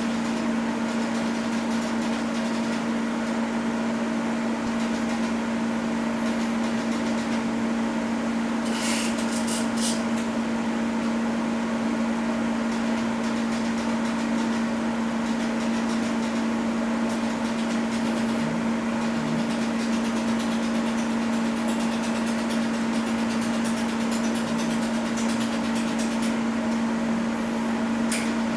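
Laser welding workstation running with a steady electrical hum, with a few sharp clicks about nine seconds in and once more near the end.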